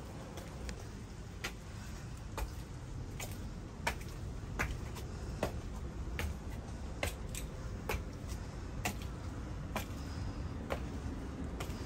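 High-heeled shoes clicking on stone steps, one sharp step about every 0.8 seconds at a steady climbing pace, over a low rumble of handling noise.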